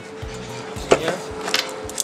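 A handheld angle grinder, not running, set down on a wooden workbench with one sharp knock about a second in, followed by a few lighter clicks of handling. Background music plays underneath.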